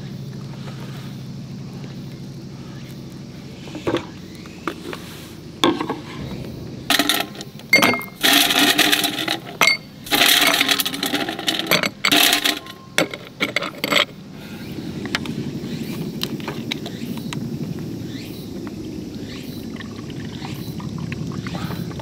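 Ice cubes dropped by the handful into a glass tumbler, a clatter of sharp clinks and knocks that is loudest around the middle. After that comes a steady pour of liquid over the ice.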